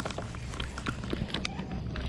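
Irregular light clicks and knocks from handling gear aboard a plastic kayak, over a low steady rumble.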